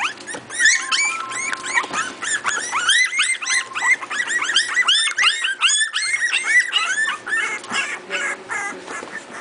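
A litter of four-week-old miniature pinscher puppies yelping and squealing: many short, high-pitched cries overlapping, several a second, thinning out near the end.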